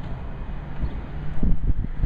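Wind buffeting the microphone in low, gusty rumbles, with a stronger gust about one and a half seconds in.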